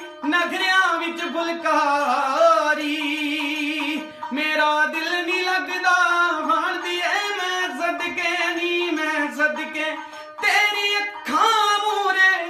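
A man sings a Punjabi folk melody with wavering, ornamented runs, over the held notes of a harmonium, with a tumbi plucked along. The singing breaks off briefly about four seconds in and again near ten seconds.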